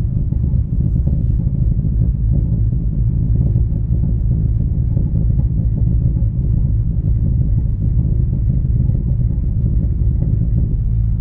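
2017 Audi A4 B9's turbocharged four-cylinder with an Armytrix valvetronic catback and 034 Motorsport racing catalyst, heard from inside the cabin while driving: a steady low exhaust rumble with faint pops on the overrun.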